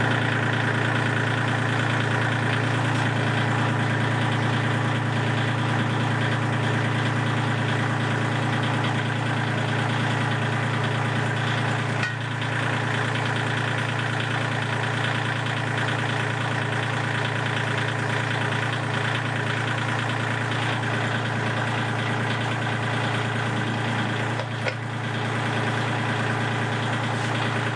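Kubota L2501 compact tractor's three-cylinder diesel engine idling steadily, running to power the front loader's hydraulics.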